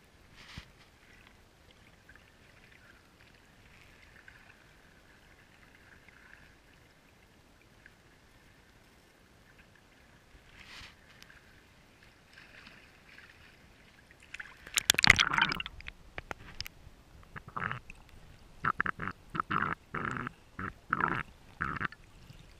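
Water gurgling and sloshing around a waterproof action-camera housing held at and dipped below the surface: faint lapping at first, then, about two thirds of the way through, a loud sloshing rush followed by a string of short gurgles about twice a second as the camera goes under.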